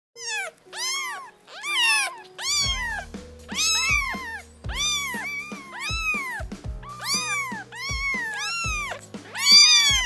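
Domestic cat meowing over and over, a quick run of short rise-and-fall meows about two a second, loudest near the end. From a couple of seconds in, background music with a bass line and a steady beat plays under it.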